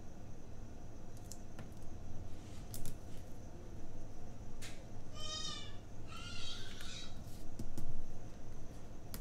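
Soft rustles and light taps of paper and washi tape being handled and pressed down onto a planner page. Two short high-pitched cries cut in, one about five seconds in and another a second later.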